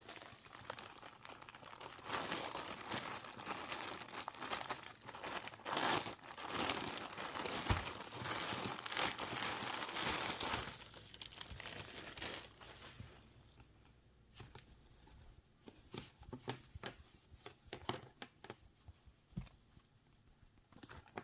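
Plastic packaging crinkling and tearing as a package is unwrapped, a continuous rustle for the first dozen seconds. Then scattered light clicks and taps as the contents are handled.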